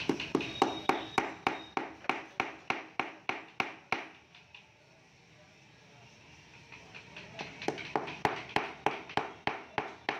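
Small hammer tapping inlay pieces into a wooden bed panel: a quick run of light, even knocks at about four a second, a pause of a few seconds midway, then another run of taps.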